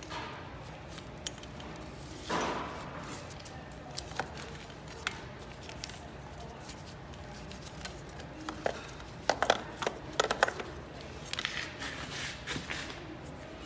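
Handling noises of a carburetor and its cables being worked into place on a Honda CRF450R: scattered light clicks, knocks and rustling, with a quick cluster of sharper clicks about nine to ten seconds in.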